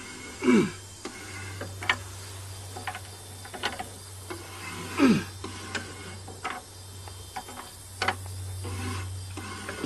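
Seized alternator turned over by hand with a wrench on its pulley: irregular clicks and short scraping squeaks from the stator rubbing on the field magnet, over a steady low hum.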